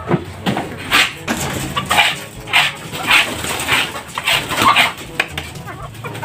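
Hand scraper scraping chicken droppings off a concrete coop floor in quick, uneven strokes, about two a second.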